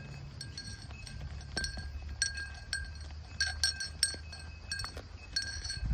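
Bell worn by a walking cow, clanking irregularly in uneven clusters of strikes as the cow moves, over a steady low rumble.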